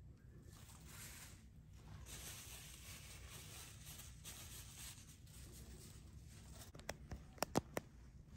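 Faint rustling and scraping as a painted canvas is nudged and turned on a paper-covered table, followed by a handful of sharp clicks about seven seconds in.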